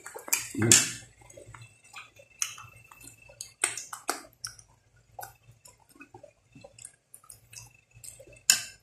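Mouth sounds of eating: irregular wet smacks, sucks and chewing as soft goat leg meat is bitten and sucked off the bone and fingers are licked.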